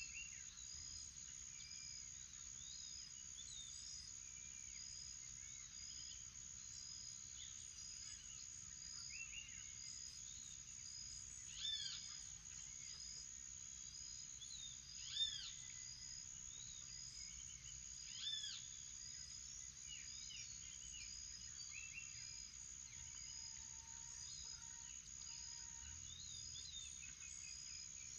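Morning forest bird chorus: scattered arched bird calls, three of them louder at about 12, 15 and 18 seconds in. Underneath runs a steady high-pitched drone and a short high note repeating under a second apart.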